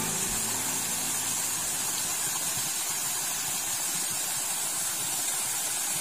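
Small forest waterfall cascading over rock into a stream: a steady hiss of running, splashing water.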